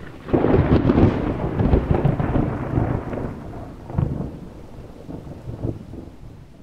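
Thunder sound effect: a loud rumble that comes in suddenly, with a second clap about four seconds in, and then fades away.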